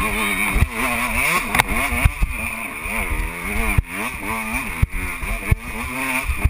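KTM 125 EXC two-stroke enduro motorcycle engine revving up and down again and again as the bike climbs a steep rocky trail, with several sharp knocks.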